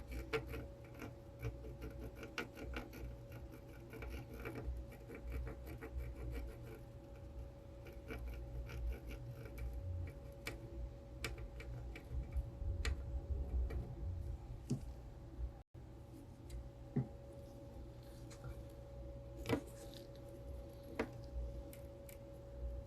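Faint scattered clicks and taps of small tools working on a circuit board during desoldering, over a steady low hum with a thin constant tone from bench equipment.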